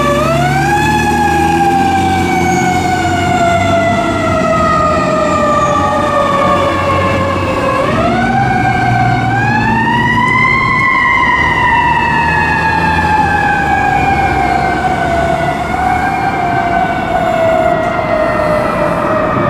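Siren of a 1995 KME fire engine: it rises about a second in, falls slowly, rises again around eight seconds in, then slowly falls once more. The truck's engine rumbles underneath as it pulls away.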